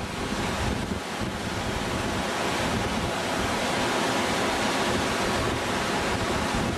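Whitewater of a steep mountain stream cascading over boulders down a rocky gully: a steady, loud rushing noise.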